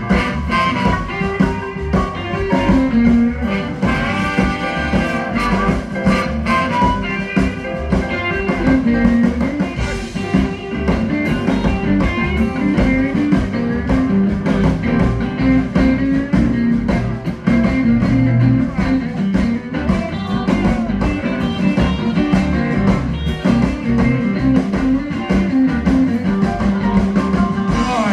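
Live blues band playing an instrumental break, with guitar to the fore over bass and a steady drum beat.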